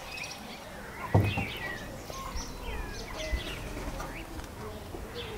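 Birds chirping repeatedly in short, sliding calls, with a single low thump about a second in.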